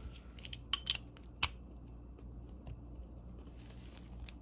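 A vintage Walden 1/2-inch drive ratchet and metal parts being handled, with a quick run of four or five sharp metallic clicks and clinks in the first second and a half, then only faint handling.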